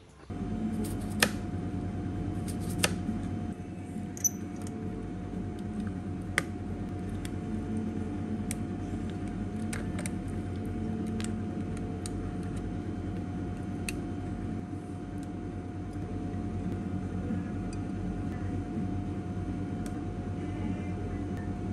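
Sharp clicks and light taps of kitchen utensils, a plastic egg slicer and a metal server handling boiled egg on a plate, over a steady low hum with a faint constant tone. The two loudest clicks come in the first three seconds, and lighter ones are scattered through the rest.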